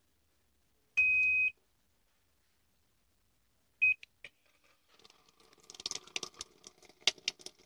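An electronic beep of about half a second at one steady high pitch, then a much shorter beep at the same pitch about three seconds later. Irregular clicking and rattling follow, growing busier toward the end.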